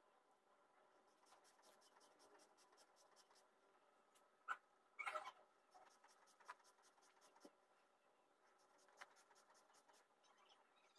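Near silence with faint handling sounds: an evergreen sprig, flowers and thread being fitted together by hand, with light rustles and small taps and a brief louder rustle about five seconds in.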